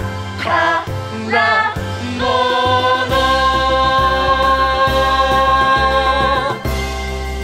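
A stage-musical song with backing music: a few short sung phrases, then one long held sung note of about four seconds over a steady bass. The note ends shortly before the close.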